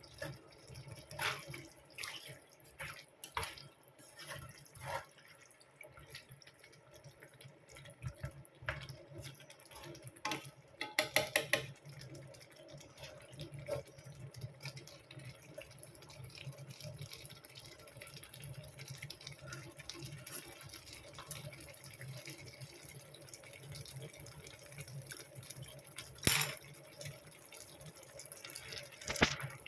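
Kitchen sink sounds: water from a tap dripping and running, with scattered knocks and clinks of dishes or utensils, a quick rattle about eleven seconds in and one sharp knock near the end, over a steady low hum.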